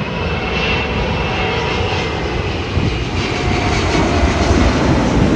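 Jet noise from an Airbus A380's four turbofan engines as the airliner comes in to land, a steady rushing sound with a faint high whine, growing a little louder near the end.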